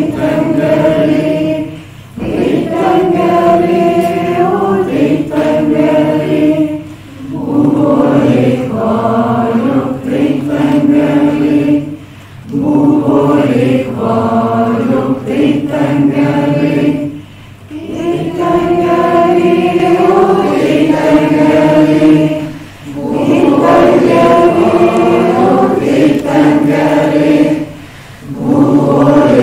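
A roomful of people singing a repeated chant together, in phrases of about five seconds with a short breath between each.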